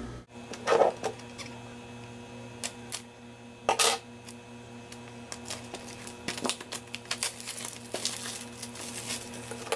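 Small plastic storage jars and their packaging being opened and handled: scattered light clicks and taps, with two short, louder rustles about one and four seconds in.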